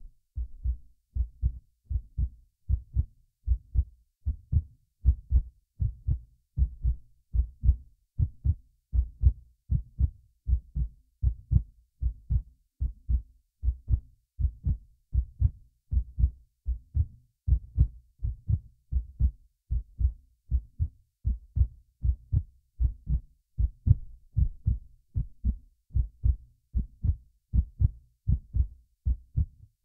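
Human heartbeat heard through a stethoscope on the chest: low thuds repeating in a steady, even rhythm.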